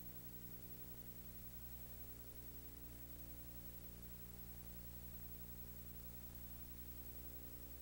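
Faint steady electrical hum with hiss, the background noise of the recording, with nothing else happening.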